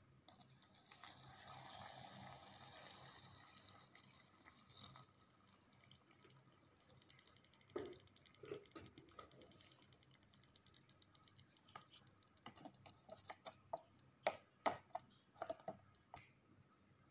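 Water poured into a paper cup of instant ramen noodles for about four seconds, followed by scattered sharp taps and crinkles, loudest near the end, as the cup's paper lid is pressed back down.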